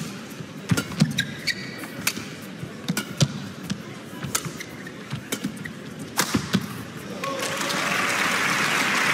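Badminton rally: a string of sharp racket strikes on the shuttlecock and short squeaks of shoes on the court. About seven seconds in, as the rally ends, the crowd breaks into applause that swells.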